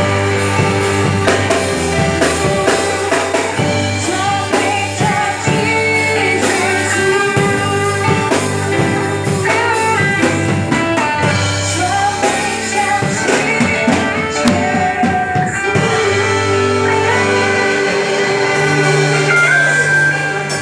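Gospel worship group singing to a band accompaniment with drum kit and guitar.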